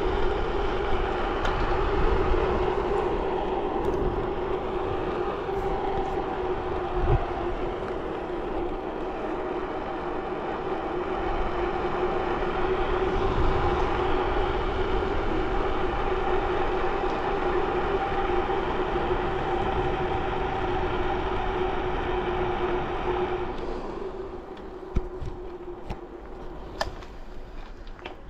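Steady road noise from a bicycle ridden at speed: a constant hum with a rush of air over it. About 24 seconds in it drops away to a quieter rolling sound with a few sharp clicks.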